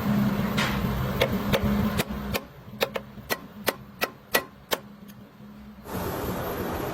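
Steady machine hum that cuts off, then a run of about eight sharp hammer blows on metal, roughly three a second, before a steady running noise starts again near the end.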